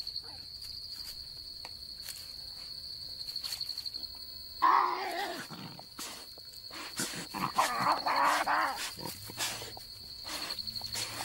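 Tasmanian devils snarling in two harsh outbursts while feeding, about five seconds in and again around eight seconds, over a steady high cricket trill.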